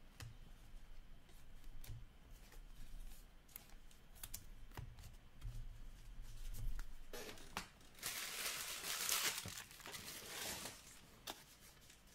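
Small clicks and rustles of trading cards and plastic sleeves being handled. About seven seconds in, a couple of seconds of louder crinkling and tearing of plastic wrapping.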